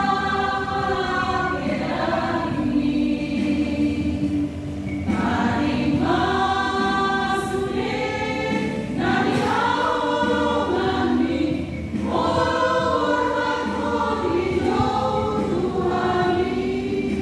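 Women's choir singing a Batak-language hymn, long held phrases with short breaks between them.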